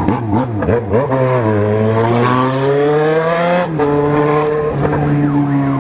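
Motorcycle engine accelerating through traffic. The revs climb steadily for about two seconds, then drop sharply at an upshift and hold steady.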